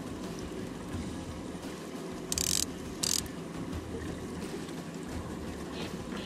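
Fishing boat underway: a steady low rumble of engine and water, broken about two and three seconds in by two short loud hissing bursts.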